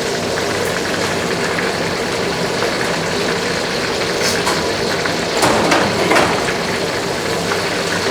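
Hot oil sizzling steadily as seafood fritters in spring roll pastry deep-fry, with a few brief knocks about four to six seconds in.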